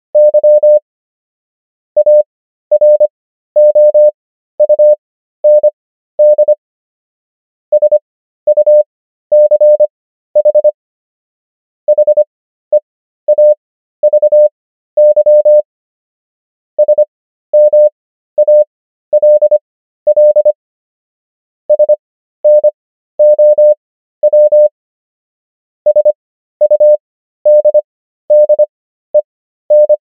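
Morse code sent as a keyed single-pitch tone: groups of short and long beeps spelling out words, with the characters sent at 25 words per minute and Farnsworth spacing stretching the overall speed to 13 words per minute, so there is a pause of about a second between words.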